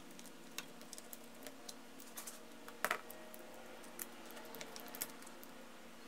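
Faint scattered clicks and ticks of plastic and metal as the terminals are worked and broken off the terminal block of an 18 V NiCad battery pack, with a sharper double click about three seconds in.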